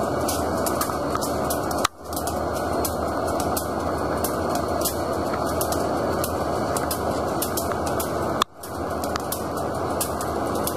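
CP Rail SD40-2 diesel locomotives, with their 16-cylinder EMD 645 engines, hauling a freight train past at slow speed. Their engines and rolling wheels make a steady, dense rumble, with many sharp ticks over it. Twice, about two seconds in and again near the end, the sound cuts out abruptly and swells back.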